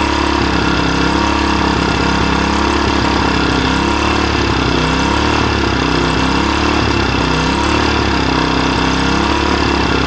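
Small 3.5 horsepower gas engine running steadily, its pitch wavering up and down from about four seconds in.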